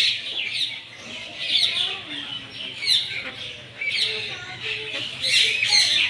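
Many birds chirping and twittering together, a steady stream of quick high calls and short falling notes that grows busier near the end.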